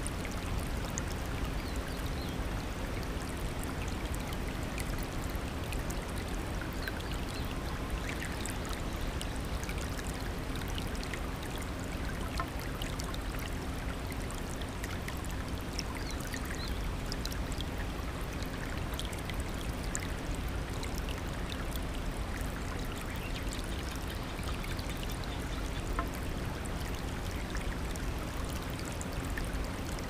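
Shallow rocky stream rushing over boulders in a small cascade: a steady flow with scattered small splashes.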